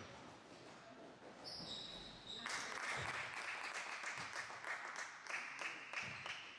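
Sneakers squeaking on a hardwood gym floor, then about two and a half seconds in, spectators break into clapping and applause that lasts to the end. A basketball thumps on the floor now and then beneath it.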